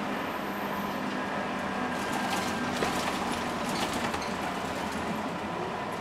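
Interior of a Scania K230UB Omnilink single-decker bus on the move: its five-cylinder diesel engine running steadily, with interior panels rattling and clicking a few times between about two and four seconds in.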